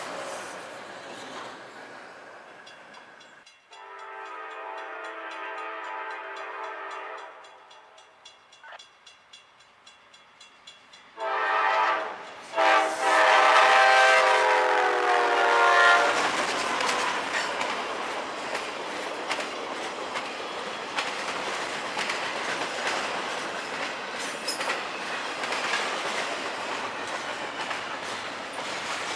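Freight cars rolling past on the rails, then a diesel locomotive horn sounding a long chord blast, followed by louder blasts as the train nears. A CSX intermodal train of double-stack well cars then rumbles past, with steel wheels clacking over the rail joints.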